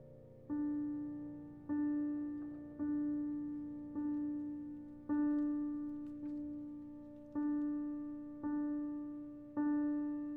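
Grand piano: one mid-range note struck nine times at an even pace of about one a second, each strike ringing and fading before the next.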